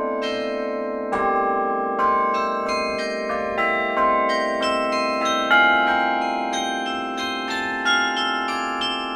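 Carillon bells played from a baton keyboard: a slow melody of struck bell notes, about one or two a second, each ringing on and overlapping the next, over long-sounding lower bells.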